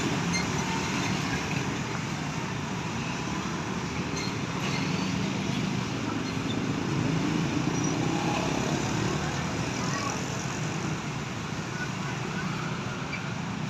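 Roadside traffic noise: the steady engine rumble of passing buses and other vehicles, swelling slightly around the middle, with no horn tune sounding.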